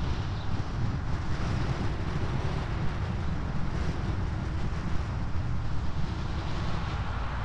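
Steady rumble of wind on the microphone together with road noise from a vehicle driving along a paved road.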